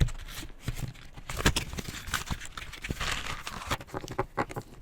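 Felt-tip marker pens and paper being handled: irregular clicks and taps with scratchy rustling.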